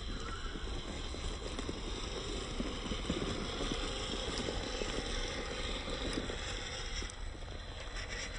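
WPL C24 RC crawler's brushed 370 motor and single-speed gearbox running as it crawls over dirt and rock, with its tyres crackling through dry leaves and soil.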